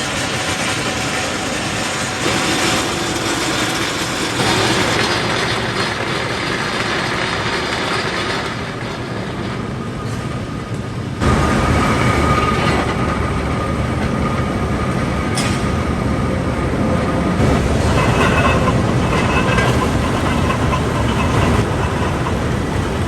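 Steel mill machinery running with a continuous clattering, rumbling noise and faint squeal-like tones; about eleven seconds in the sound jumps abruptly louder and heavier.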